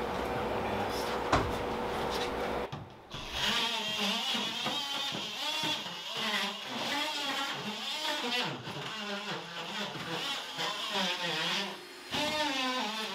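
A steady mechanical hum with one sharp click for the first few seconds, then background music with a wavering singing voice.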